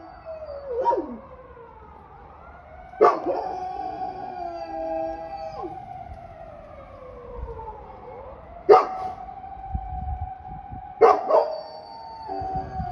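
A young golden retriever howling: several long howls, each starting sharply and then held or sliding down in pitch. The howl is newly learned and not very polished.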